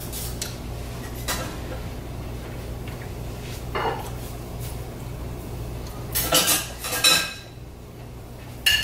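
Dishes and cutlery clinking: a few scattered knocks, then a quick cluster of clinks about six to seven seconds in and another near the end, over a steady low hum.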